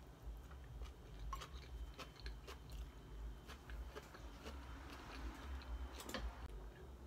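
A person chewing a mouthful of a soft bun slider filled with barbecue pulled jackfruit and slaw: faint, irregular small mouth clicks and squelches.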